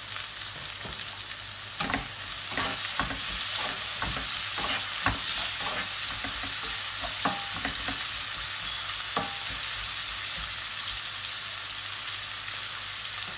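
Chopped tomatoes and onions sizzling in hot oil in a non-stick frying pan: a steady hiss, broken by scattered knocks and scrapes as a plastic slotted spatula stirs them. This is the onion, ginger, garlic and tomato base of a curry gravy being fried.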